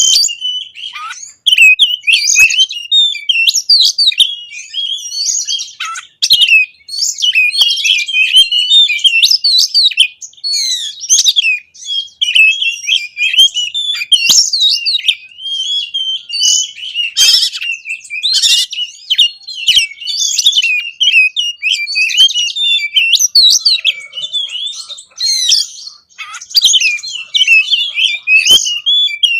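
Oriental magpie-robin (kacer) singing hard and without let-up: fast, varied phrases of sharp whistles and twittering notes, broken by short pauses. This is the loud, insistent 'gacor' song that keepers play to provoke their own birds into singing.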